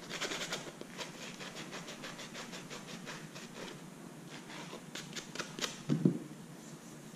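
Hand sanding the sawn edge of a PVC coupler ring with a sanding block: a quick run of rubbing strokes at first, then slower, scattered scrapes. A dull thump sounds about six seconds in.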